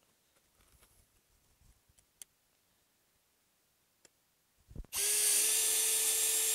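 Hilti cordless screwdriver motor running at a steady speed for about two seconds near the end, pressed into an aluminium Bimini-top tube. Before it, a few faint clicks from handling screws.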